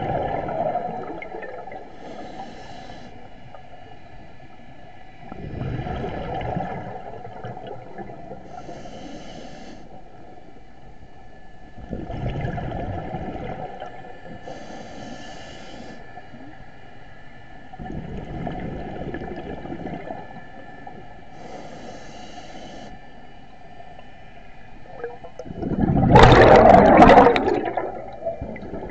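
Scuba diver breathing through a regulator underwater: short hissing inhalations alternating with bubbling, rumbling exhalations, about one breath every six to seven seconds, the exhalation near the end the loudest.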